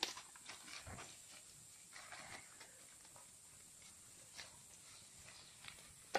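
Wooden stick stirring shredded fish in a skillet: faint scattered scrapes and taps, busiest in the first couple of seconds, over a steady high hiss.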